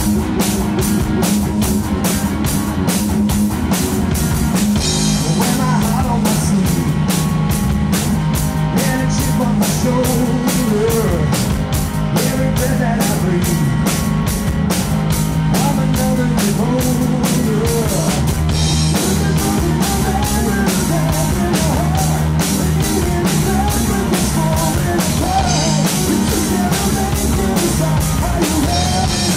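Live rock band playing a pop-rock cover: electric guitar, bass guitar and drum kit keeping a steady beat, with a male lead vocal coming in about six seconds in.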